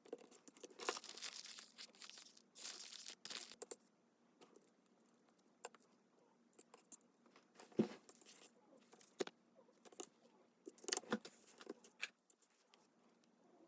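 Paper being handled and torn, a few seconds of rustling and ripping starting about a second in, then a handful of light knocks and clicks on the work surface.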